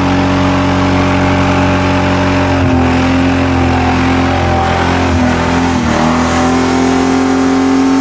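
Ford Thunderbird's engine held at high revs, steady, with a few brief dips in pitch in the middle before it settles back to the same note.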